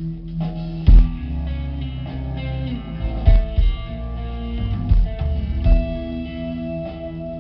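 Live progressive metal band playing: electric guitars ring out sustained chords and melody notes over bass, with a few heavy drum hits.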